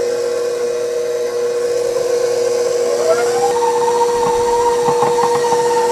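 Tilt-head stand mixer running as it beats flour into creamed butter, a steady motor whine under load. About halfway through a second, higher whine glides up in pitch and holds as the mixer speeds up.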